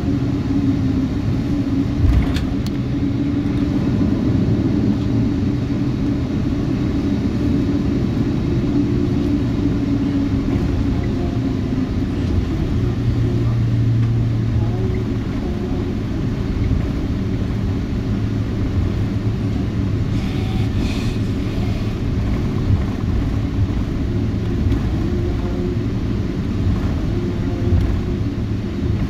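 Cabin noise inside a Boeing 777-200ER on the ground after landing: a steady rumble of the engines and the undercarriage rolling on the taxiway, with a single knock about two seconds in.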